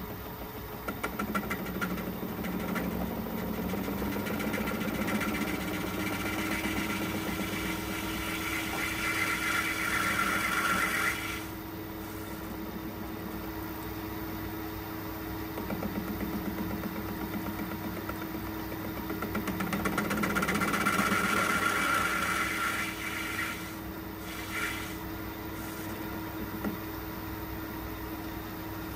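Metal lathe turning a cast brake cylinder, the motor and spindle running steadily throughout. The tool cuts two passes, about ten and eight seconds long, each ending abruptly as the cut finishes, with the lathe running on between and after them.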